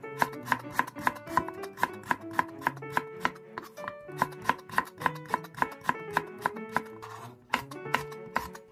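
Knife chopping on a cutting board, about three quick cuts a second, over light background music.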